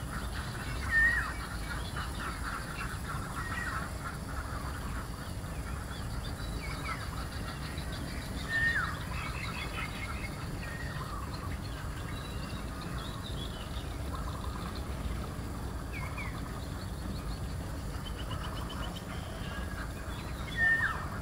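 Waterfowl calling: short honking calls, each sliding down in pitch, come every few seconds, the loudest about a second in, about nine seconds in and near the end, over a steady low rumble.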